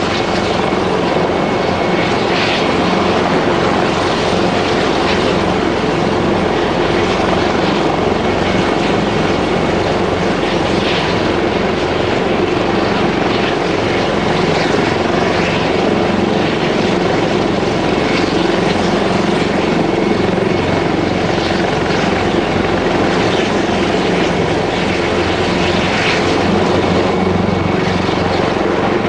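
Airbus Helicopters EC225LP Super Puma running steadily and loudly: the noise of its twin turboshaft engines and rotor holding an even level, with a thin steady whine.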